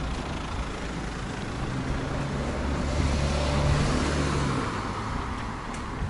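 A car passing on the adjacent road: engine hum and tyre noise swell to a peak about halfway through, then fade.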